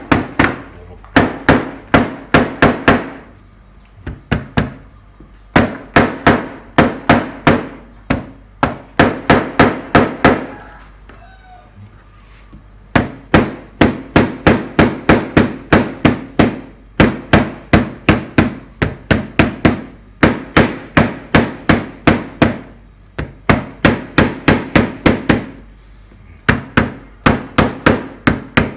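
Ginger root being pounded on a plastic cutting board with the butt of a knife handle to crush it. The knocks come about four a second, in runs of a few seconds broken by short pauses.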